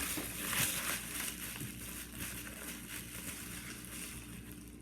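Packaging crinkling and rustling as it is handled and opened, louder in the first second or so and then softer.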